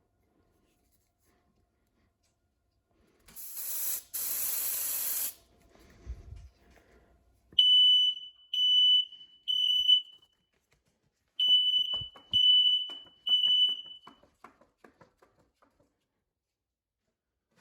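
Aerosol smoke-test spray hissing in two short bursts into a smoke alarm. A few seconds later the alarm goes off with a high-pitched temporal-three signal, two sets of three beeps, the sign that it has detected the test smoke.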